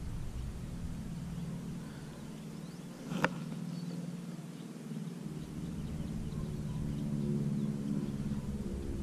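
Steady low hum of a distant engine, growing stronger about halfway through, over a low rumble of wind on the microphone. A single sharp click about three seconds in.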